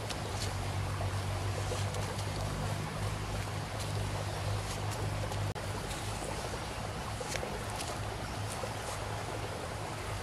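Steady rushing outdoor noise with a constant low rumble underneath, and a few faint light clicks or rustles.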